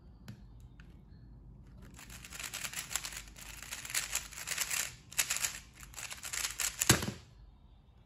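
Rapid plastic clicking and clacking of a 3x3 speedcube being turned fast through a timed solve, starting about two seconds in and lasting about five seconds. It ends with a loud thud as the solved cube is set down and the timer is stopped.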